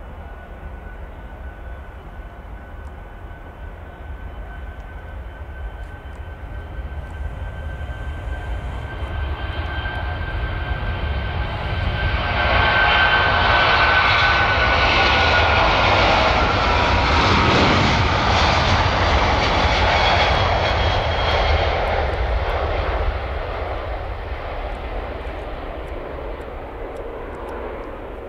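Airbus A340-600's four Rolls-Royce Trent 556 turbofans at takeoff thrust: a steady jet noise with a high whine that builds as the aircraft rolls toward the listener, is loudest for about ten seconds from twelve seconds in as it passes, the whine dropping slightly in pitch, then fades as it climbs away.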